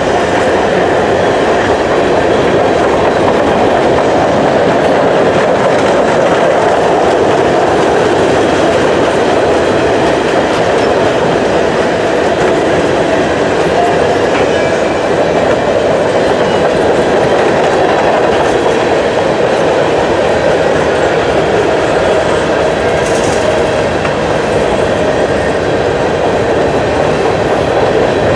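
Covered grain hopper cars of a freight train rolling past, a steady rolling noise of steel wheels on rail.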